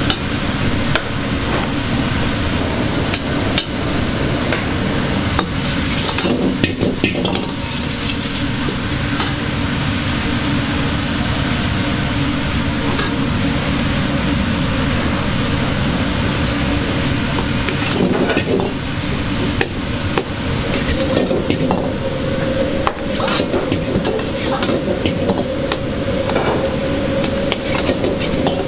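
Egg fried rice sizzling in a hot wok, with the repeated clack and scrape of a metal ladle stirring and tossing it.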